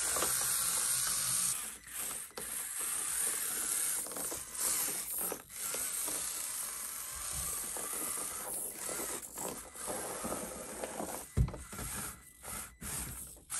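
Basher Rocksta 1/24-scale four-wheel-steer mini rock crawler's motor and gear drivetrain whirring in spurts as the throttle comes on and off while it crawls over rock. A sharp knock near the end as the truck tips over.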